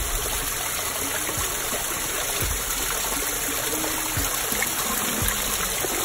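Small garden waterfall spilling over rocks into a pond, a steady rush of running water.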